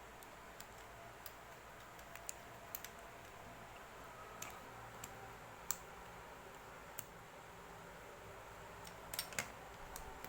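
A dozen or so scattered light clicks and taps, irregularly spaced, over a faint steady hiss; the sharpest click comes about halfway through, and two close together near the end.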